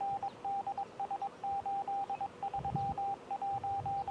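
Fire dispatch radio heard through a receiver during a pager test: one steady mid-pitched tone beeping on and off in a quick, irregular pattern of short and longer beeps.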